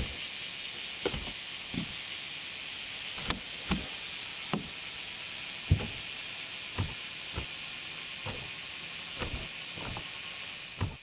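Slow, uneven footsteps of thong sandals knocking on wooden bridge planks, about one step every half second to a second. Under them runs a steady high drone of summer insects.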